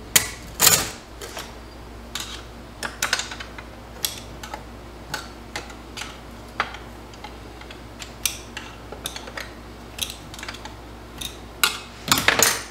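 Scattered light metallic clicks and clinks as clutch parts are picked out of a TH350 automatic transmission case with a small hook tool, irregular and about one every half second to a second. The loudest clink comes just under a second in, with a quick cluster of them near the end.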